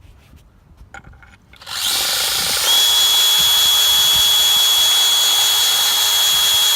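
Hammer drill starting about two seconds in and running steadily at speed, with a steady high whine, while driving out a cabinet screw.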